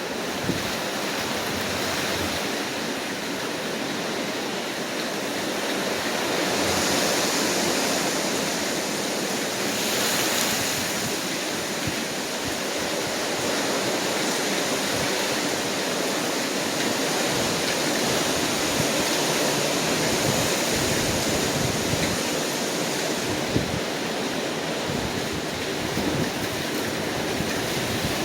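Hurricane Ian's wind gusting, a steady roar of noise that swells with stronger gusts about seven and ten seconds in.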